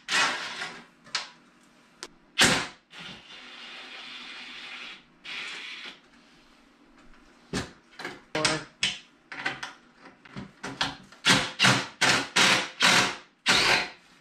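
Ratchet wrench with an 11 mm socket backing out the bolts that hold a snowmobile's rear bumper: a few clicking strokes, a couple of seconds of steady rasping hiss, then a quick run of strokes, about three a second, over the second half.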